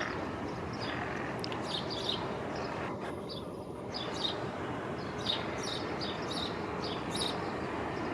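Small birds chirping, many short high notes in quick runs, over a steady low rushing background noise.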